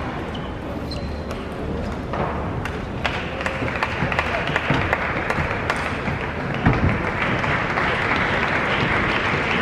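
A table tennis ball clicks sharply off the bats and table during the first few seconds. Crowd applause then swells and keeps going.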